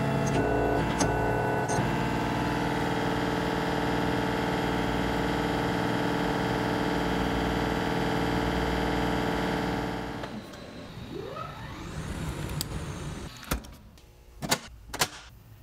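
Steady hum of running shop machinery with several fixed tones, which drops away sharply about ten seconds in. A brief gliding whine follows, then a few sharp clacks near the end.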